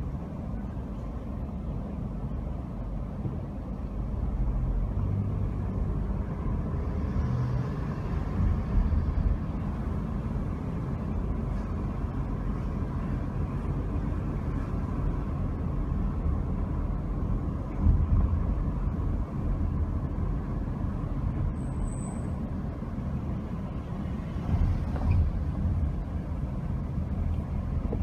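Car driving slowly on city streets: a steady low engine and road rumble with tyre noise, and two louder bumps in the second half.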